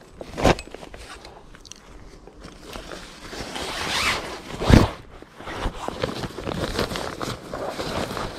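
A folding camp chair being handled, its fabric seat rustling and its metal frame knocking. There is a sharp knock about half a second in, a swelling swish of fabric near the middle followed by the loudest thud, then a run of small rustles and clicks.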